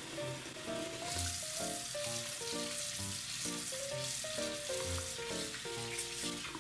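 Cold tap water running steadily into a mesh strainer of sliced green onions in a stainless steel sink, with a hand swishing the onions through the water. Soft background music with a slow melody plays over it.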